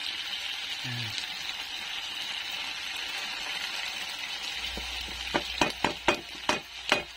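Chicken pieces sizzling steadily as they fry in their own rendered fat in a pan. From about five seconds in, the sizzle is joined by a quick series of sharp knocks, about three a second, as a utensil stirs the chicken in the pan.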